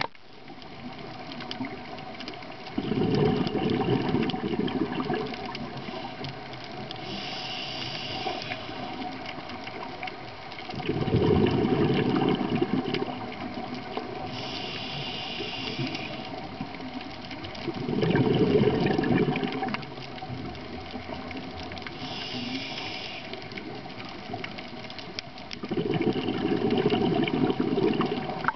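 Scuba diver's regulator breathing cycle underwater: a short hiss on each inhalation, then a loud rush of exhaled bubbles about every seven or eight seconds, four bubble bursts in all.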